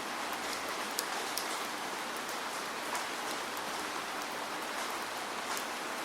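Steady rain, a dense even hiss with the sharp ticks of single drops hitting a surface scattered through it.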